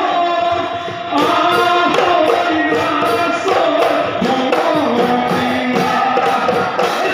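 Husori Bihu music: a group of men singing a Bihu song in chorus over Assamese dhol drums beaten in a steady rhythm. The music grows louder about a second in.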